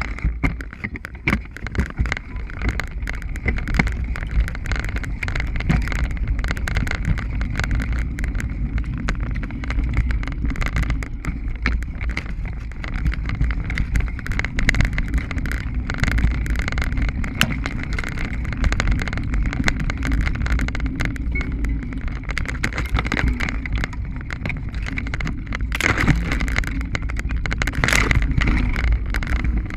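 Mountain bike ridden fast over a dirt singletrack: a steady low rumble of tyres and wind buffeting the microphone, with constant rattling and clattering as the bike runs over roots, stones and leaves. Near the end come two brief louder rushes of noise.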